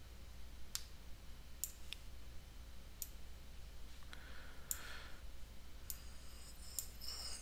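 Computer mouse clicking: six or so single sharp clicks at irregular intervals, over a faint steady low hum.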